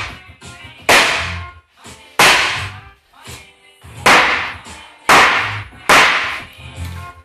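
Hard blows struck on an IKEA Malm chest of drawers' particleboard carcass: about five loud, sharp cracks roughly a second apart, each with a short dull thud after it.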